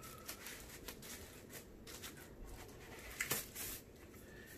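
Rustling and scratching of a thin protective wrap as a portable monitor is slid out of it and handled, with a louder rustle about three seconds in.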